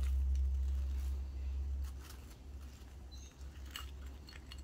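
Gloved hands peeling and handling cut copper winding wire from a motor stator core: faint scattered rustling and a few light clicks, over a low steady hum that fades about two seconds in.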